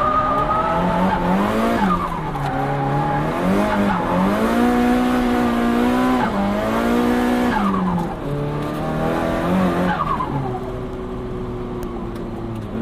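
Turbocharged Nissan Silvia S15 engine with an HKS GTIII turbo, heard onboard while the car is driven hard: the engine note climbs and drops back several times as the throttle is worked or gears change, then holds a lower, steadier note near the end.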